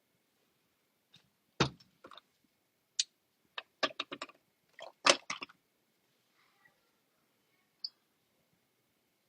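A scatter of short, sharp clicks and taps close to the microphone, bunched in the first half and ending with one last click.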